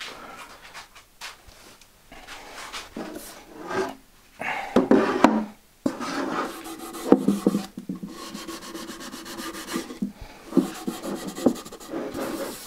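A sponge rubbing a tinted oil finish onto oak drawer fronts: irregular scrubbing strokes in spells with short pauses, and a few light knocks of the wooden drawer boxes.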